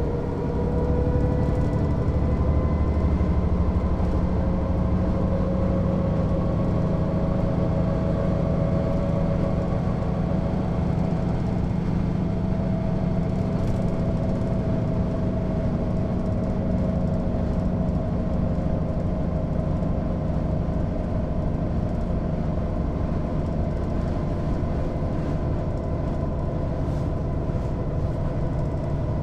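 Mercedes-Benz O 407 city bus's six-cylinder diesel running under way. Its pitch rises over the first few seconds as the bus picks up speed, then holds fairly steady at cruising speed.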